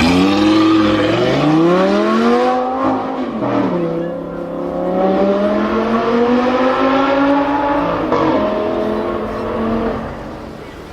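Sports car engine accelerating hard, its pitch climbing. It drops at a gear change about three and a half seconds in, climbs again, then falls away near the end and fades.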